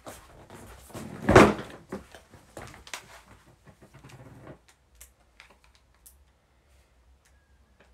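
Someone moving things about: a loud knock about a second and a half in, then rustling and clattering that stops about four and a half seconds in, followed by a few faint clicks.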